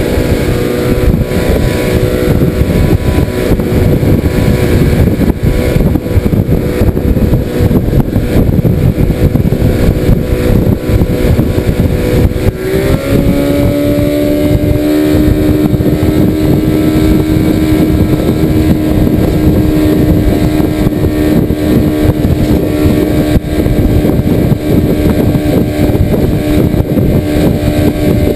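Outboard motor running steadily at speed, pushing a small aluminium skiff, over a rushing noise of wind and water. The engine note changes about halfway through, then holds steady again.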